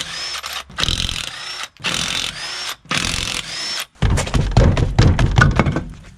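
Cordless 20-volt impact wrench spinning the lug nuts off a steel wheel in four short bursts of about a second each, one per nut, each ending in a brief rising whine. Then the loose steel wheel clunks and rattles as it is pulled off the wheel studs.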